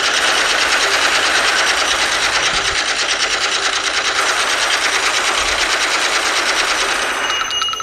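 Automatic submachine-gun fire sound effect, a rapid continuous rattle of shots that dies away near the end.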